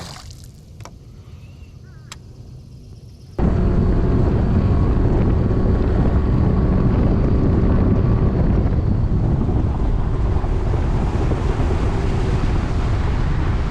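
A fishing boat running under motor power with wind buffeting the microphone: loud steady engine and wind noise that starts abruptly about three seconds in. Before that, a low hum with a few sharp clicks.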